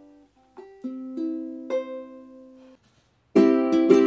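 Ukulele music: single notes plucked slowly and left to ring. After a brief pause, louder strummed chords start about three and a half seconds in.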